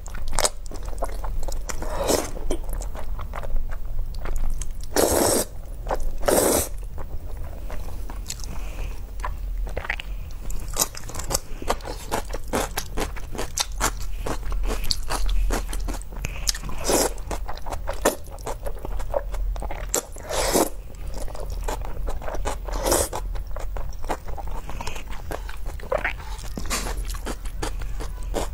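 A person eating jajangmyeon (black bean sauce noodles), close to the microphone: steady wet chewing and biting, broken every few seconds by short noodle slurps, which are the loudest sounds.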